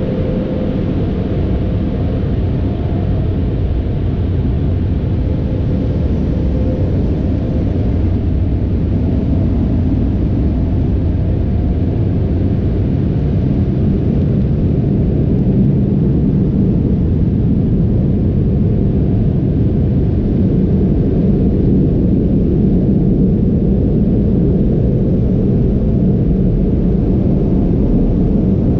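Sonny's car wash tunnel air dryers blowing, a steady heavy rush of air heard from inside the car's cabin, deep and even and growing slightly louder over the stretch.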